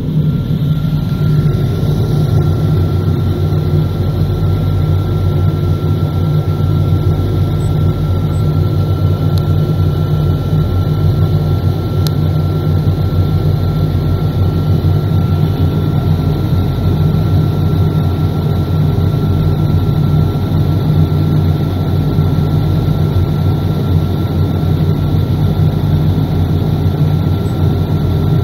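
Steady, loud low mechanical drone of engines running at an aircraft de-icing stand, heard from inside a vehicle cab, with a constant high whine that sets in about half a second in.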